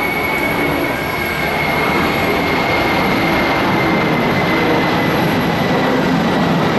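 Jet aircraft engines running loud and steady, a noisy rumble with a high whine that slowly drops in pitch.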